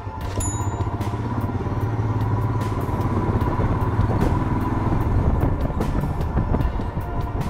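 Royal Enfield Himalayan's 411 cc single-cylinder engine running as the motorcycle rides along a street, growing louder about a second in.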